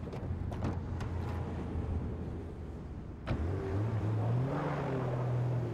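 Car engine running steadily, with a few light clicks. About three seconds in, a car engine revs up with rising pitch as the car moves off, its tyres churning through slushy snow.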